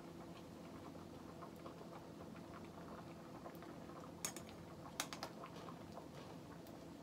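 A pot of ground food boiling on the stove: a faint, steady pattering of small bubbles. Two sharper clicks come about four and five seconds in.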